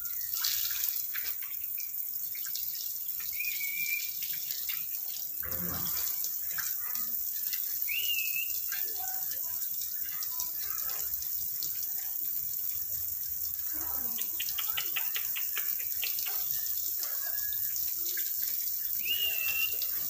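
Black-capped lory giving three short whistled chirps that rise and fall, with scattered clicks and a quick run of clicks about three-quarters of the way through, over a steady hiss.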